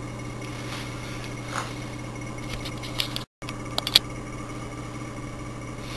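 A steady low electrical hum over room tone. A few light clicks come a little past halfway, and the sound cuts out completely for a split second about three seconds in.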